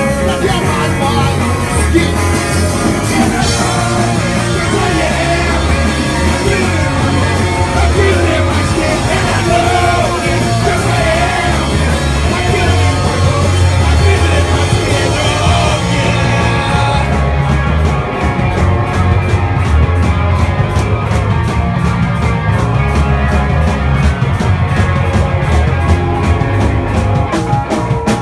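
Punk band playing live: loud full-band rock music with strong bass and singing. About two-thirds of the way through, the high end drops away, leaving a driving, even beat.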